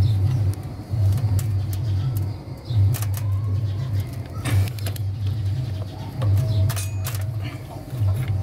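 Socket wrench tightening the clutch lock nut on a Honda CD-70 engine, giving a few short metallic clicks, over a low hum that pulses unevenly.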